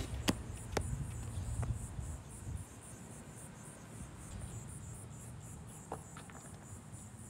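Insects chirping in a steady high-pitched pulse, about five pulses a second. Over it come a few sharp skateboard clacks on concrete in the first two seconds and one more about six seconds in.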